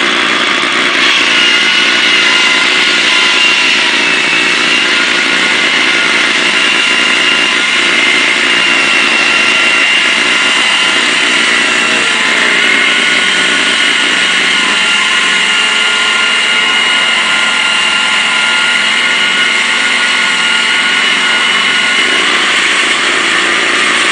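Engine-driven concrete saw cutting through a concrete pavement slab: a steady, loud, high whine of the blade in the concrete over the engine's running, holding pitch with only small dips.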